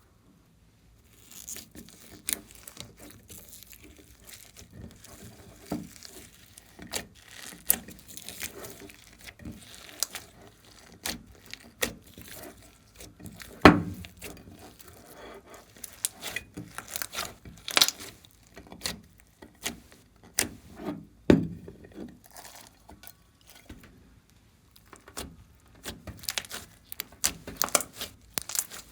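Glossy slime being squished and stretched by hand, giving off dense, irregular sticky clicks and crackles, with a couple of louder pops. It starts about a second in.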